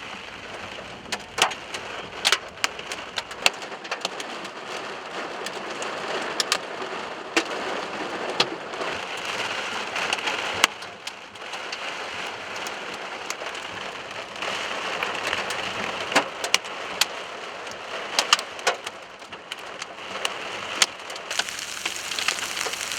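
Hail and heavy rain pelting a car: a steady hiss of rain with many sharp, irregular hailstone impacts scattered through it.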